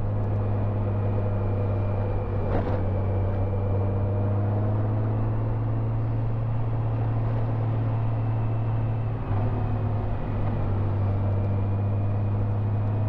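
Honda Gold Wing GL1800's flat-six engine running at a steady cruise, heard on board as a constant low drone. There is a short click about two and a half seconds in, and the drone dips briefly about nine seconds in before steadying again.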